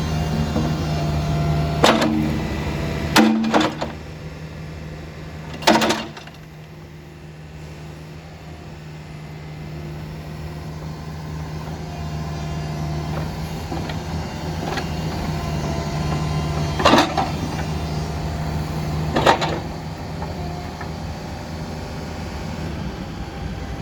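Case 580 Super N backhoe's diesel engine idling steadily, with several sharp metallic knocks and clunks over it. The hum drops in level after the knock about six seconds in, then slowly builds back.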